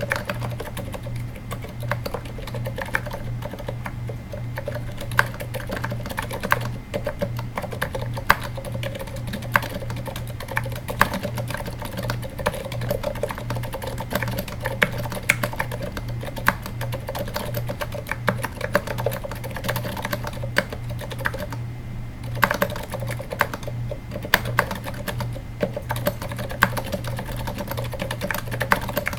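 Continuous typing on a Katana-60 keyboard with 78g Zilents, silent tactile switches whose sliders are rubber-dampened on both downstroke and upstroke, under /dev/tty keycaps in an aluminium case: a quick, irregular stream of soft, muted keystrokes. A steady low hum runs underneath.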